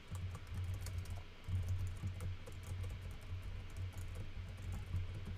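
Typing on a computer keyboard: a quick, uneven run of key clicks, each with a dull low thud.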